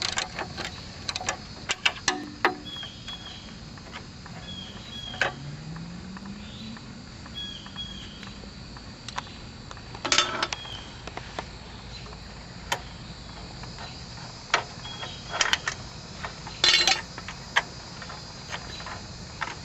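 Scattered clinks and knocks of hand tools against the tractor's metal as bolts are worked on under a Sears ST16 lawn tractor, a few of them louder. Under them runs a steady high insect trill.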